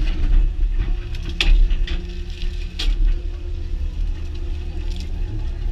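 Excavator's diesel engine and hydraulics running under load as its bucket and thumb grab and lift a log, with a few sharp knocks about one and a half, three and five seconds in.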